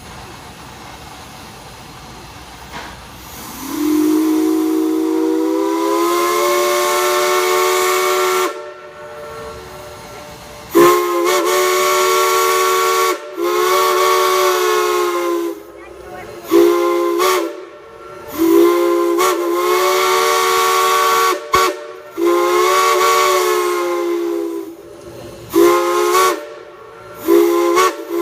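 A steam whistle sounding a chord of several notes, blown in a series of blasts with a hiss of steam. The first long blast rises in pitch as it comes up to full voice. The blasts that follow vary in length, with short toots near the end.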